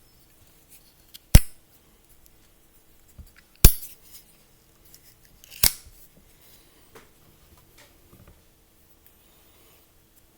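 Silver-plated Zippo lighter being handled: three sharp metallic clicks about two seconds apart, the loudest in the middle, with a few faint ticks between.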